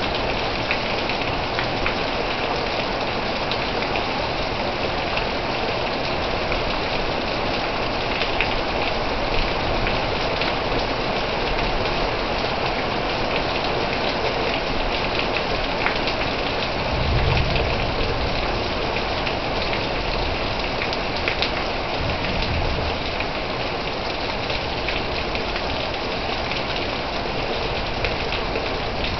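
Heavy rain falling steadily, with close drops ticking and splashing. A brief low rumble swells up about halfway through.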